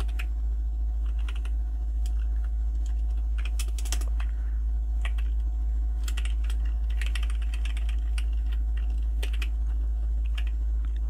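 Typing on a computer keyboard: keys clicking in short, irregular runs, over a steady low hum.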